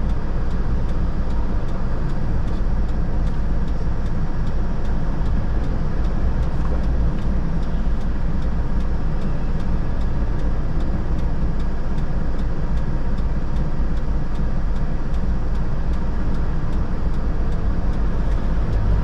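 Mitsubishi Fuso Canter truck's diesel engine idling steadily, heard from inside the cab, with a faint regular ticking.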